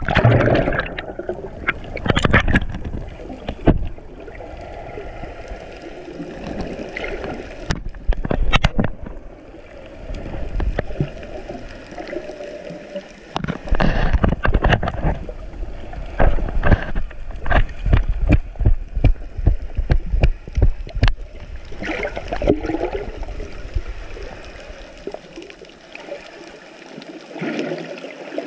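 Water sloshing, gurgling and splashing around an action camera held at the surface, muffled whenever the lens dips under. In the middle there is a run of quick splashes and knocks.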